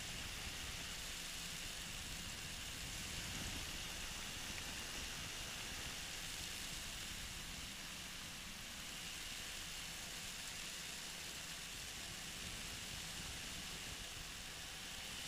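Steady engine and wind noise of a flexwing microlight trike in cruise flight, heard as an even hiss with a faint high steady tone.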